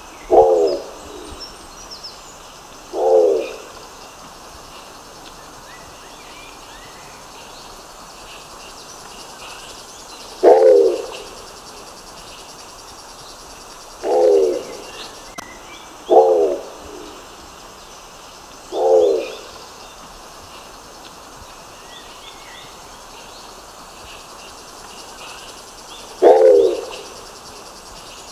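Nicobar pigeon calling: seven short, low calls about half a second each, coming at uneven intervals with long gaps between them. Faint high chirps of other birds or insects sound in the background.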